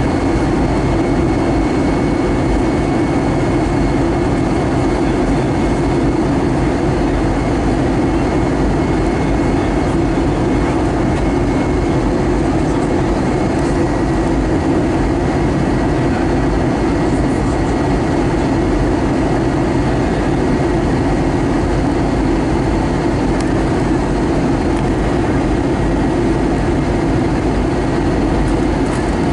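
Cabin noise inside an Airbus A320 on descent, heard beside the wing: the turbofan engine and rushing air make a loud, even rumble with a faint steady high whine over it.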